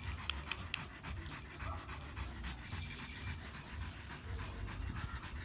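A dog panting over a steady low rumble.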